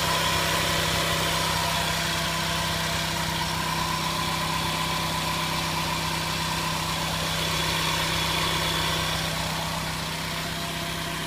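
A 2002 Dodge Stratus's 2.4-litre DOHC four-cylinder engine idling steadily.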